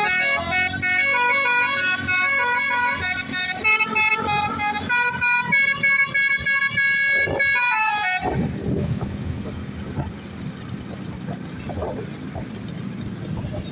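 Bus 'basuri' telolet horn, a multi-tone musical air horn, playing a tune of held notes that step from pitch to pitch. It cuts off about eight seconds in, leaving a low rumble of vehicle noise.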